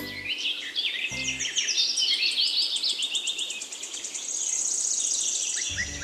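Songbirds chirping and trilling in a busy chorus, with a fast high trill about four to five seconds in. Two short low notes sound near the start and about a second in.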